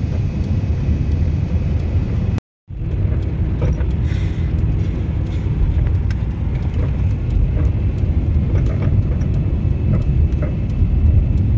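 Steady low road and engine rumble heard from inside a moving vehicle. About two and a half seconds in, the sound cuts out suddenly and briefly, then resumes.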